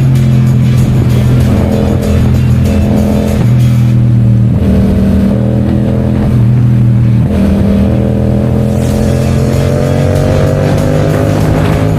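Yamaha MT-07's 689 cc parallel-twin engine with a 270-degree crossplane crank running at a steady speed, its pitch slowly rising over the last few seconds.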